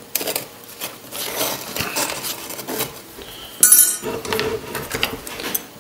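Small metal tool tapping and clinking against the metal frame of a Delft clay casting mould, a series of light clicks with one brighter metallic clink about three and a half seconds in.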